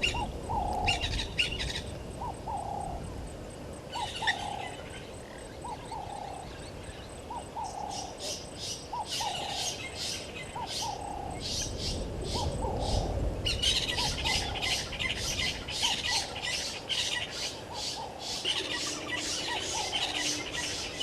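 Wild birds calling: one bird repeats a short low note over and over, a little more than once a second, while others chatter in rapid high calls that get busier from about the middle on.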